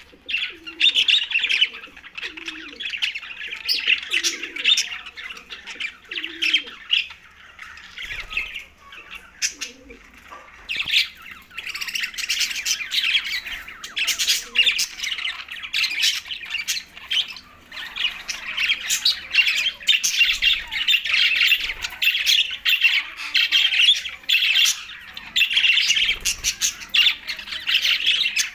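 A flock of budgerigars chattering and squawking continuously, many overlapping warbles and chirps. In the first few seconds a lower, regularly repeated call sounds beneath the chatter, about once every second.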